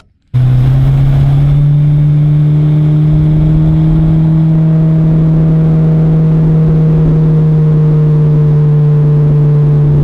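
Outboard motor driving a small aluminium boat at speed, a loud, steady drone that cuts in suddenly right at the start.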